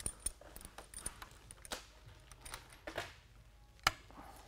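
Vise-grip locking pliers clinking and scraping against the head of a one-way security screw as the jaws are fitted on, with a sharp metal click about four seconds in as the pliers lock onto the head.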